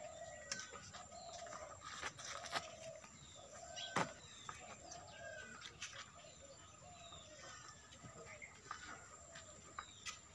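Farmyard birds calling: a short call repeated about once or twice a second, with higher chirps scattered over it. A few sharp clicks and knocks come through, the loudest about four seconds in.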